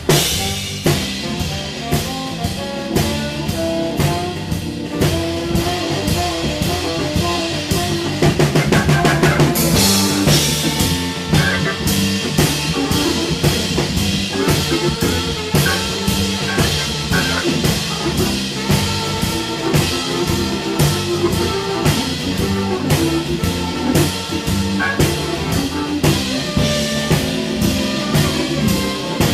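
Live rhythm and blues band playing an instrumental, with a drum kit keeping a steady beat under Hammond organ. There is a louder, brighter stretch with a cymbal wash about eight seconds in.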